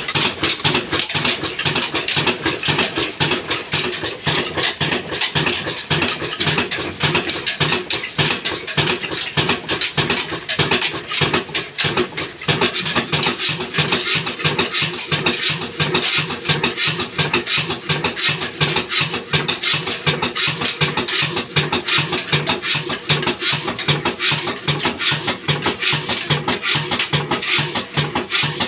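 Old horizontal single-cylinder diesel engine with a large flywheel, of the Ruston & Hornsby type, running steadily with a rapid, even clatter.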